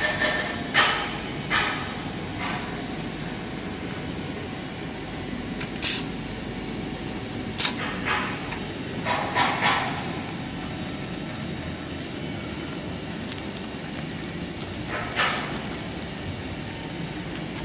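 Clear plastic packing film crinkling and rustling as toilet tissue rolls are bagged at a small bag-sealing machine, with a few sharp clacks from the sealer. Under it runs a steady machine hum.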